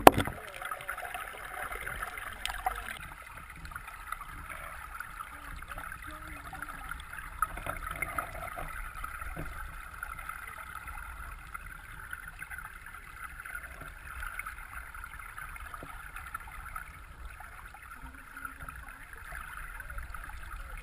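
Stream water flowing and gurgling, heard from a camera held underwater, with faint scattered ticks and one sharp knock right at the start.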